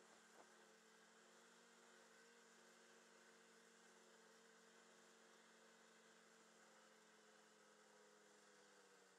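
Very faint, steady snowmobile engine hum picked up by the riding camera, a few even tones that dip slightly in pitch near the end.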